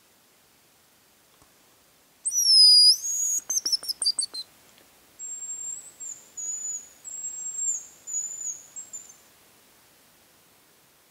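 Thin, very high hazel grouse whistles: a loud whistled phrase about two seconds in, breaking into a quick trill, then a fainter run of short whistles for several seconds.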